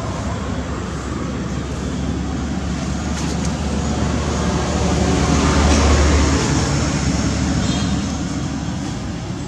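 Road traffic noise: a vehicle rumble that swells to a peak about six seconds in and then fades.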